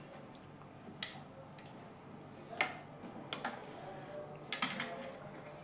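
Metal tongs and chopsticks clicking and clinking against a hot pot and bowls: a handful of separate sharp clicks over a low steady hum.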